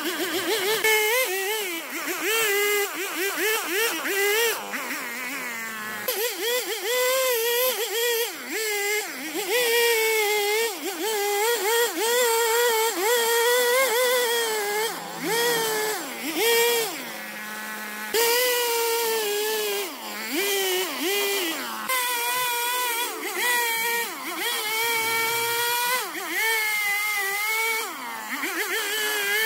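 Handheld power cutting tool running and cutting into wood. Its motor pitch keeps dipping and rising with the load, with several deeper dips where the tool bogs down in the cut.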